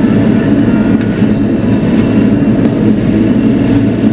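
Bobcat E42 compact excavator's diesel engine running steadily at working speed, a dense low drone with faint clicks over it.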